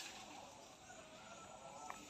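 Near silence: quiet open-air background with a few faint thin tones.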